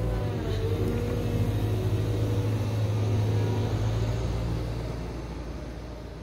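Heavy machine's diesel engine running steadily, its pitch rising slightly about half a second in; the sound fades away near the end.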